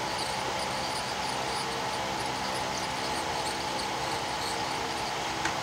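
Hot air rework station blowing at 400 degrees to reflow a replacement power IC onto a Galaxy S4 motherboard: a steady airflow hiss with a fan hum, and faint high chirps over it.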